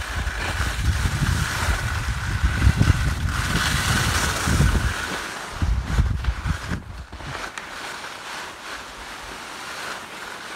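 Wind buffeting a phone's microphone while skiing downhill, over the steady hiss of skis sliding on snow. The gusty rumble eases about seven seconds in, leaving mostly the hiss.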